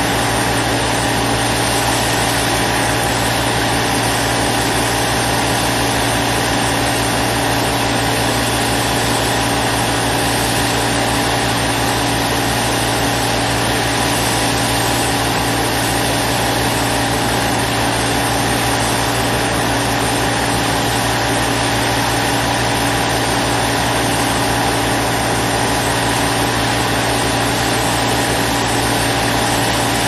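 Construction machine's engine idling steadily, the same even pitch throughout.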